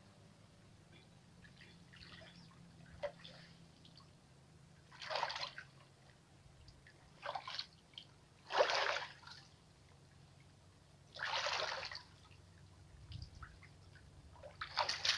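Water splashing and sloshing in about five separate bursts, the loudest a little past halfway, as a man wading waist-deep hauls a fishing net through the water.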